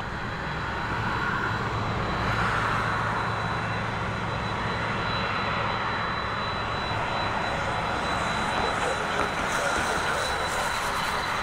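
Boeing 767-200's twin jet engines running as the airliner taxis: a steady rumble with a thin, high, steady whine on top.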